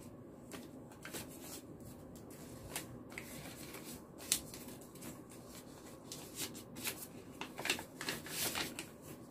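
Paper red envelopes and banknotes rustling as they are handled and opened by hand: irregular short crisp rustles, busier near the end, with one sharper tick about four seconds in.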